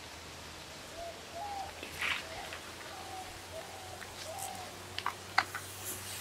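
Bird calling in a few short, gliding notes over a steady outdoor hiss, then near the end several sharp clicks of a coconut-shell ladle knocking against a clay pot.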